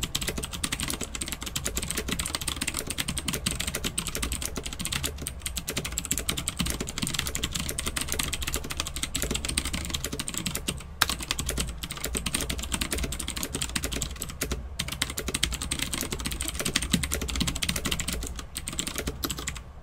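Fast touch-typing on a Havit HV-KB366L mechanical keyboard with blue (Outemu) switches: a rapid, continuous stream of loud key clicks, with a few brief pauses between bursts.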